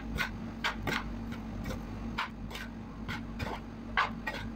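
A serving spoon scraping and knocking against a large pan while mixing cooked rice, in short irregular strokes about two or three a second, with a steady low hum underneath.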